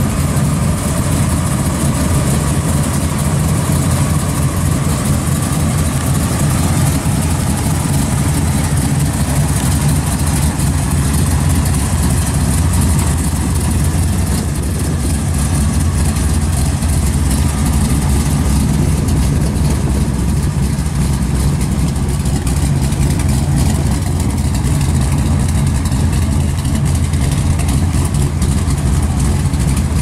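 Pontiac Ventura II's engine idling with a steady, deep exhaust rumble as the car creeps past at walking pace.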